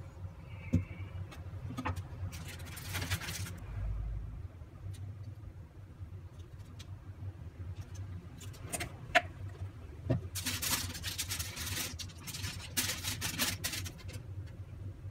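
Food-prep handling sounds: a few sharp taps of a knife and hands on a wooden chopping board, and aluminium foil crinkling and rustling in two bursts, briefly about two and a half seconds in and again for several seconds from about ten seconds in, over a steady low hum.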